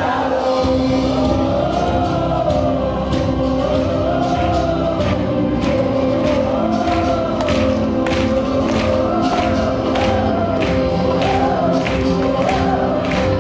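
A cast choir singing a song live together, with long wavering sung lines over a held backing chord and a steady beat of sharp hits about twice a second.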